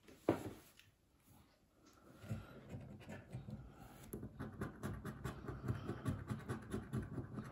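Coin scraping the scratch-off coating of a bingo scratch card in quick repeated back-and-forth strokes, starting about two seconds in after a single tap near the start.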